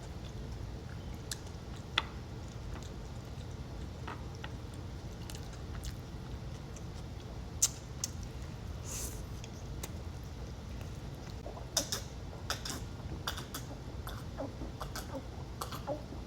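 Close-miked mukbang eating sounds of sushi being chewed: scattered soft wet mouth clicks and smacks, more frequent in the second half, over a steady low hum.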